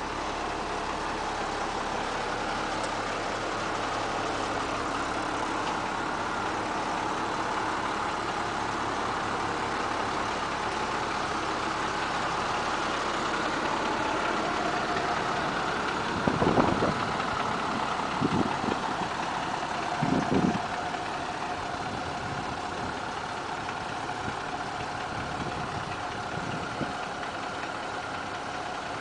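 International 4900 utility truck's engine idling steadily. About halfway through come three brief, louder thumps a second or two apart.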